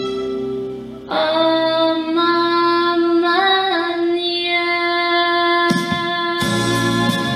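Music of sustained held chords with no words. The chord changes after a brief dip about a second in, and a fuller layer comes in near the end.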